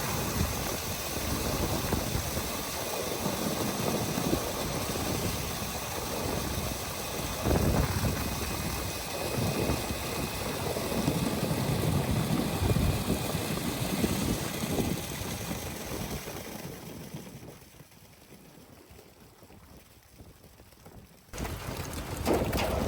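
Wind buffeting the microphone over a steady rushing noise, in gusty low surges. It fades away after about 17 seconds and cuts back in abruptly near the end.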